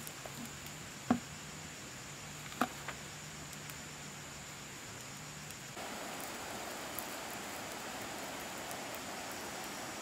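Open wood campfire with a few sharp crackles or snaps in the first three seconds, one clearly the loudest, over a faint low hum. About six seconds in, a steady hiss sets in, and a thin high steady tone runs throughout.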